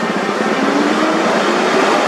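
Scania tractor unit's diesel engine pulling a low-bed trailer loaded with a motor grader, its note rising steadily as the truck gathers speed.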